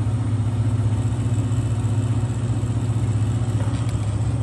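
Enco 2 HP, 115 V mill-drill's electric motor and spindle running steadily in reverse, a loud, even hum.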